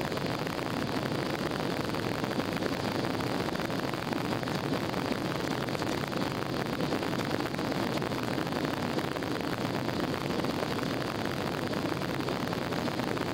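Steady noise of a jet airliner's engines and rushing air heard inside the passenger cabin during the climb after take-off.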